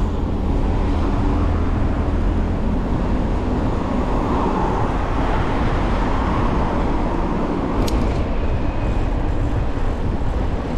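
City road traffic: motor vehicles running and passing, with a low engine hum at first and a vehicle swelling past around the middle. A sharp click comes about eight seconds in.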